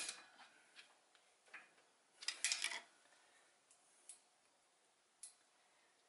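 Faint, scattered sharp metallic clicks and ticks of hands and a small tool working a retaining C-clip into the bearing cap of a new U-joint, with a quick cluster of louder clicks a bit before halfway.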